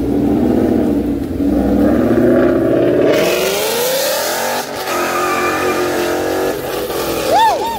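Ford Mustang GT's 5.0-litre V8 accelerating hard away from a standstill, its exhaust note rising in pitch for about three seconds, then running on steadier. A short whooping sound near the end is the loudest moment.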